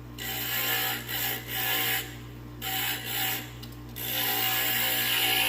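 Inland Wiz CG glass grinder running with a steady motor hum while glass is pressed against its spinning bit, giving a rasping grind in three spells, the last one continuous from about four seconds in. The glass is being ground down at the high spots of a cut edge.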